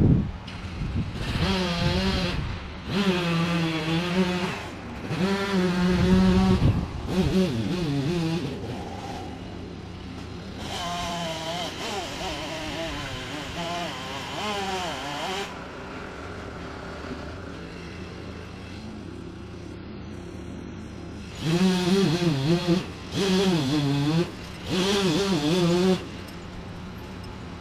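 Chainsaw engine revving in several bursts of a few seconds each, its pitch wavering as it works, and running at a lower steady pitch in between.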